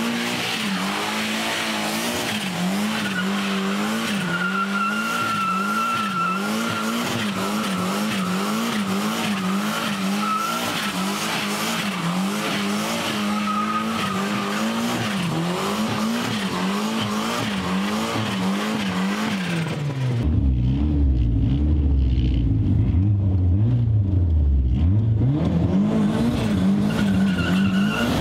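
Turbocharged 2-litre 16-valve VW Golf Mk1 doing a burnout. The engine is held high and revved up and down in a quick wavering rhythm, with the spinning front tyres squealing. About twenty seconds in, the sound turns muffled and bass-heavy, heard from inside the car's cabin.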